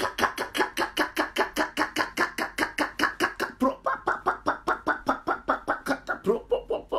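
A woman praying in tongues with a rapid, unbroken string of short repeated syllables like "pa-pa-pa", about six a second.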